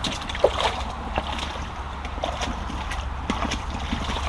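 Rubber boots wading through a shallow, stony brook: a run of irregular sloshing, splashing steps, about two a second, over the steady rush of the stream.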